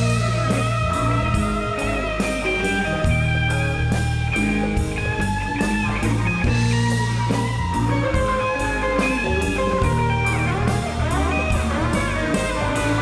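Rock music: an electric guitar lead with bending, sliding notes over bass and drums, with a steady cymbal beat at about two strokes a second.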